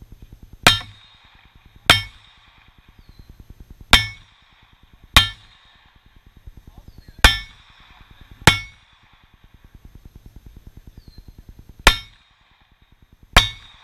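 Eight pistol shots from a Springfield XDm in .40 S&W with a 3.8-inch barrel, fired in four pairs: the two shots of each pair a little over a second apart, a few seconds between pairs as the shooter moves to the next position, each shot cracking sharply with a short ringing tail.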